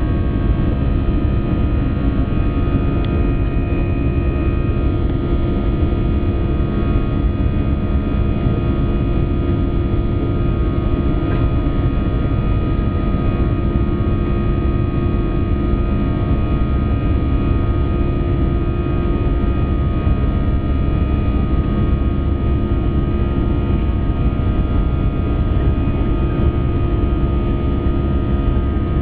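Airbus A320 jet engines heard from inside the passenger cabin: a steady, loud rumble with several steady tones above it, unchanging throughout.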